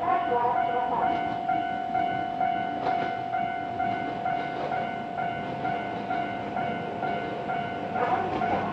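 Japanese level-crossing warning bell ringing a steady, repeating electronic ding while a train runs past over the crossing, its wheels rumbling and clattering on the rails.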